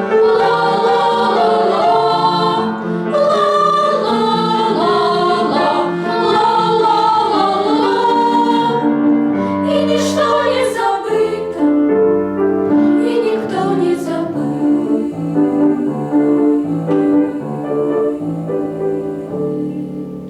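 Vocal ensemble singing a song in chorus with instrumental accompaniment. The voices drop out about halfway through, leaving the accompaniment playing the closing bars. It fades out at the very end.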